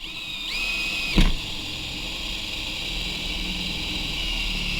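Electric drill running under load as it bores into a hard drive to destroy the platters, with a steady high whine that steps up in pitch shortly in. A single sharp crack comes about a second in, and the drill slows near the end.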